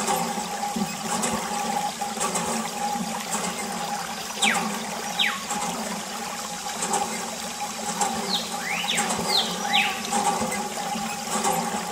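Water jetting from a thin plastic tube and splashing onto miniature toy tractors and vehicles, rinsing off mud, over a steady hum. Short falling whistles come and go, in pairs and in a cluster a little before the end.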